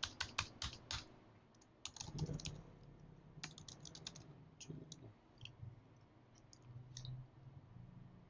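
Computer keyboard typing, faint: quick runs of keystrokes, the busiest in the first second, then shorter clusters and scattered single taps.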